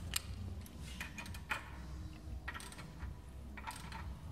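Scattered light clicks and taps, irregularly spaced, over a low steady hum.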